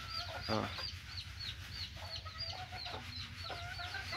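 Young chicks peeping: a steady run of short, high, falling peeps, about three or four a second, with some softer, lower calls in between.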